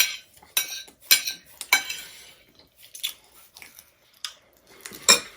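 Eating utensils clinking and scraping against a plate of chow mein: several sharp clinks in the first two seconds, quieter clatter after, and another loud clink near the end.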